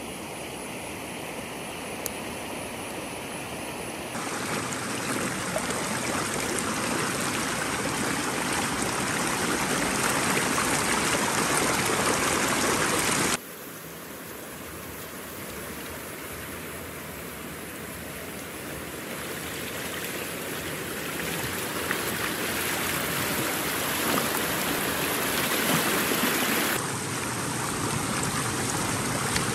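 Steady rush of running water, with a few sudden jumps in level and tone.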